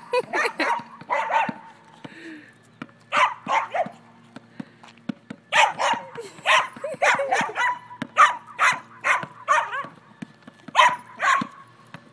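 Dachshund barking in rapid bouts of high yaps with short pauses between them, while a basketball thuds steadily as it is dribbled on asphalt.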